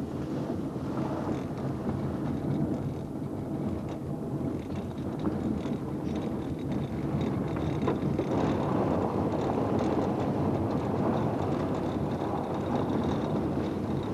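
Car driving along a dirt road, heard from inside the cabin: steady engine hum under the rumble of tyres on the unpaved surface.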